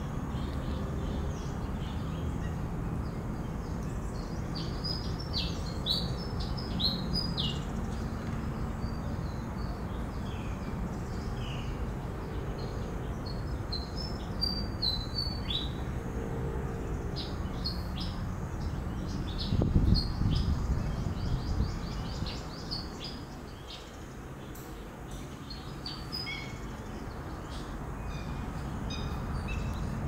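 Wading birds in a mixed flock of black-winged stilts and sandpipers give short, high chirping calls in scattered bursts over a steady low rumble. The low rumble briefly swells louder for about two seconds around two-thirds of the way in.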